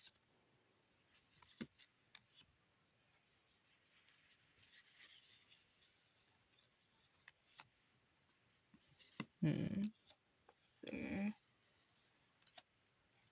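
Faint rustle and light clicks of paper trading cards being slid off a hand-held fan and flipped through one at a time. Near the end come two short wordless vocal sounds about a second and a half apart, louder than the cards.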